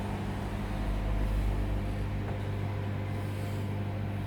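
Microwave oven running through a preheat cycle: a steady low electrical hum.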